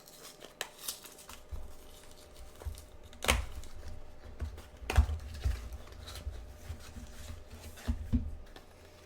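Cardboard card-game box being opened and its contents handled: scattered clicks and taps of card stock with low bumps, the sharpest about three and five seconds in.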